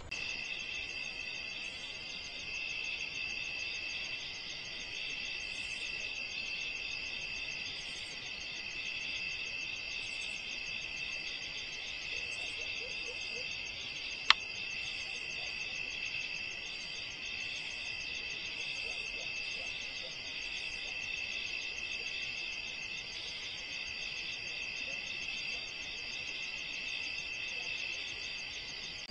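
Steady chorus of crickets and other insects, a dense unbroken trilling. There is one sharp click about halfway through.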